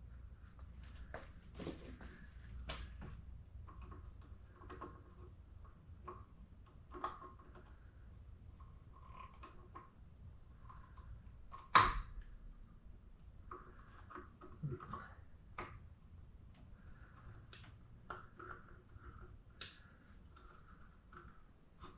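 Workshop handling noises: scattered light clicks and rattles of parts and tools being handled, with one sharp, loud knock about twelve seconds in.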